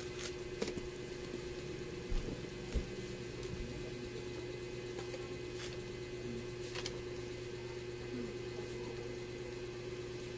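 Steady mechanical hum with a constant tone, with a few faint clicks from pomelo pith and membrane being pulled apart by hand.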